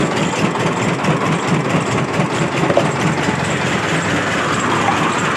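An engine running steadily at idle, a low even hum with a fast pulse.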